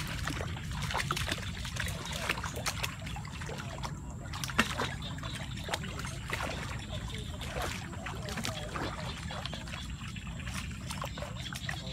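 Wading and walking through shallow floodwater and leafy brush: irregular splashes, rustling leaves and small snaps of twigs, over a steady low rumble.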